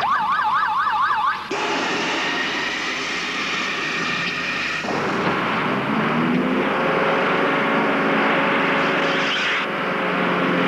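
A siren wailing quickly up and down for about a second and a half. It cuts off abruptly into a steady loud rush of noise, with a low steady drone coming in about five seconds in.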